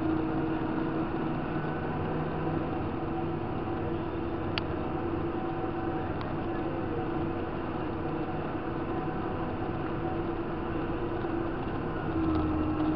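Tractor engine running at a steady road speed, a constant drone with a steady tone in it; two brief clicks about four and a half and six seconds in.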